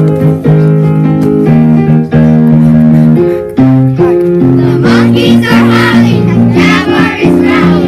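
Music from a children's song: held keyboard-like chords that change about every half second, with a wavering higher melody joining about halfway through.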